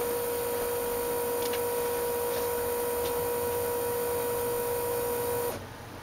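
BMW E36 in-tank electric fuel pump, run with its relay bridged for a static fuel pressure test, running with a steady whine, then cutting off suddenly about five and a half seconds in as the pump is shut down.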